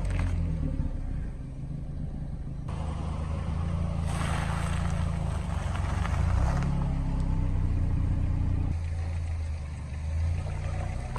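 Car engine running low and steady, as a car moves slowly. A rougher hissing noise joins it from about four to six and a half seconds in.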